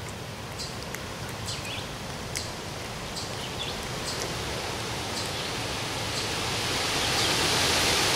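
Outdoor wind and rustling noise, a steady hiss that grows louder over the last few seconds, with faint short clicks scattered through it.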